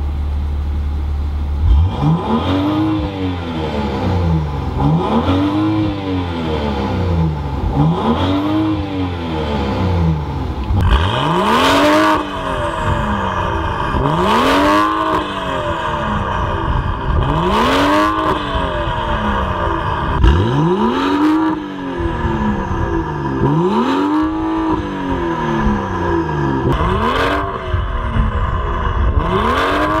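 BMW X5 xDrive35i's 3.0-litre turbocharged straight-six, heard through an Armytrix valvetronic exhaust set to loud mode with its valves open. It idles for a moment, then is blipped over and over while standing: about ten quick revs, each rising and dropping back toward idle, with a sharp crack at several of the later ones.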